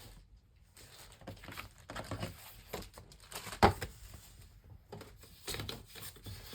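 Rummaging and handling of craft supplies: irregular paper rustling and small handling noises, with one sharp knock about three and a half seconds in.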